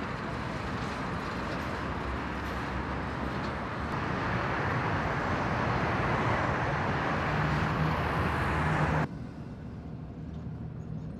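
Road traffic noise: a steady rush of vehicles along a busy multi-lane road, with an engine hum showing near the end of the loud part. About nine seconds in it drops to a quieter background.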